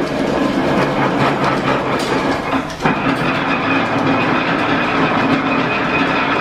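1897 Whitcomb eight-foot metal planer running on its belt drive, the table traversing under the tool with a steady mechanical running sound. About three seconds in, the sound dips briefly and then changes pitch as the table reverses direction.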